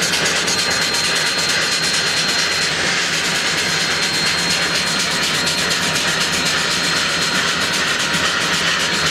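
Union Pacific 844, a 4-8-4 steam locomotive standing still, hissing steadily, with a thin high whine running through the hiss.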